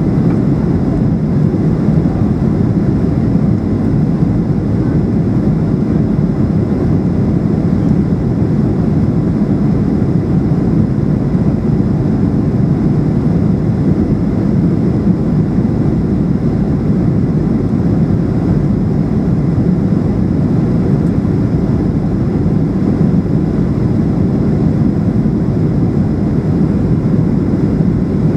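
Steady cabin noise inside a Boeing 737-800 in flight on approach: the even hum of its CFM56 engines and the rush of air past the fuselage, with a faint high whine above it.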